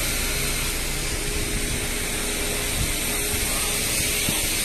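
Steady street and vehicle noise: an even hiss with a faint, constant hum beneath it.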